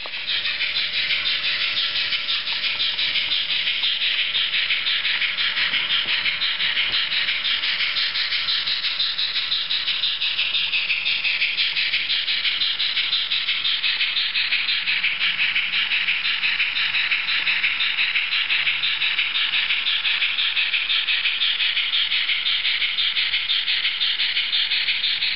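ESU sound decoder in an HO-scale Roco BR 03.10 steam locomotive model playing rapid, steady steam-engine chuffing through its small speaker as the model runs along the track.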